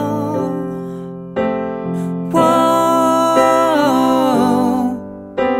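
Backing track of sustained electric-piano chords with a sung melody and a vocal harmony line over it, the voices moving together in parallel. It is sung in short phrases with brief breaks.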